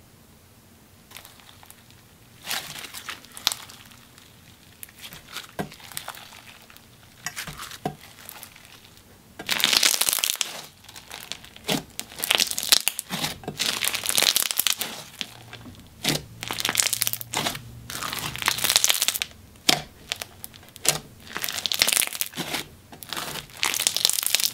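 Clear slime loaded with confetti glitter and fimo slices being stretched, pressed and squished by hand, giving crackles and bubble pops. Scattered, quieter pops for the first several seconds, then louder, denser crackling from about ten seconds in.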